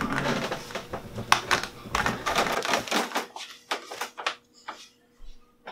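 A quick, irregular run of sharp clicks and taps, dense at first, then thinning to a few single clicks and stopping about four and a half seconds in.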